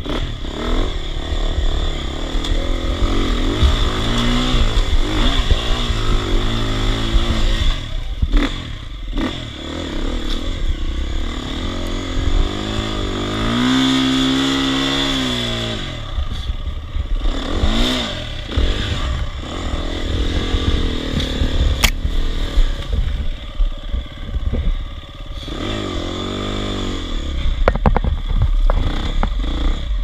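Dirt bike engine revving up and down again and again on a rough off-road climb, with one longer held rev about halfway through. Short knocks and rattles from the rough ground are mixed in, and there is a single sharp click about two-thirds of the way in.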